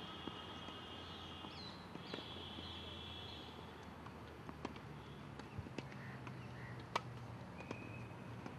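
Tennis balls struck by rackets in play on nearby courts: scattered sharp pocks, the loudest about seven seconds in. Birds chirp through the first three seconds or so.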